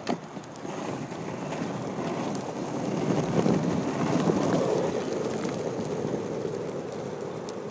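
Wind rushing over a camera microphone with a rolling rumble of motion over pavement, building over the first few seconds and then holding steady.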